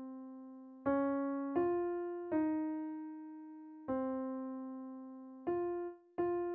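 Piano playing a slow melody one note at a time in the middle register, the alto part of a choral piece played without voices. Each note is struck and left to ring and fade before the next; six notes come in this stretch.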